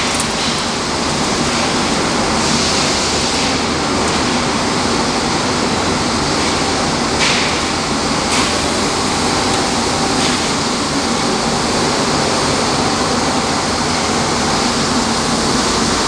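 Plastic recycling line machinery running, its conveyors and shredding equipment making a steady, dense mechanical noise with a low hum. Two brief clacks come around the middle.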